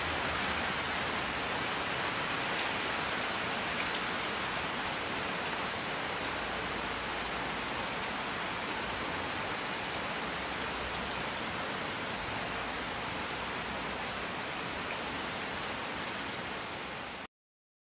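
Heavy rain falling, a steady even hiss that stops abruptly near the end.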